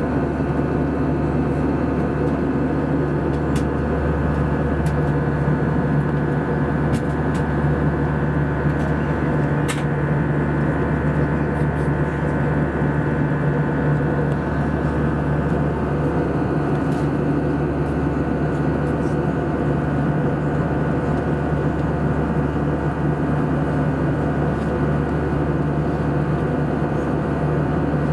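Steady in-flight cabin drone of an Airbus A320-214 airliner: the hum of its CFM56 turbofans and the rush of airflow past the fuselage, with a few faint clicks.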